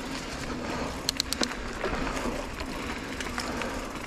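Mountain bike rolling along a dirt trail: a steady rushing noise of tyres and moving air, with a quick cluster of sharp clicks and rattles about a second in.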